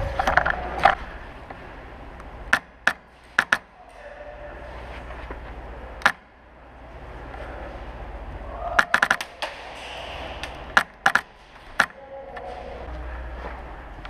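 Airsoft guns firing, a short rapid burst at the start, scattered single shots, then a burst of about five rapid shots about nine seconds in.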